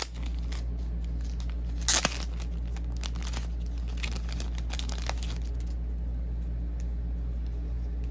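Clear plastic card bag crinkling and its sealed flap tearing open as it is pulled apart, with a loud rip about two seconds in and lighter crinkles for a few seconds after. A steady low hum runs underneath.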